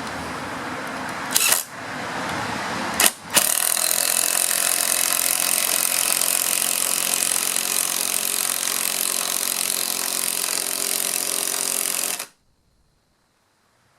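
Ryobi cordless impact driver hammering a 1/2-inch lag bolt into wood, a steady rapid rattle of impacts. It breaks off briefly twice in the first few seconds, runs on steadily, then stops suddenly about twelve seconds in.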